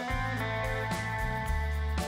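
Background music with a steady beat over a deep bass line.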